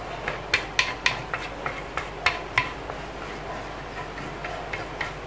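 A bamboo gata-gata stirrer knocking and scraping against a clay sempe bowl as thick, nearly finished papeda (sago starch in hot water) is stirred round. It makes irregular sharp clicks, two or three a second, louder in the first half.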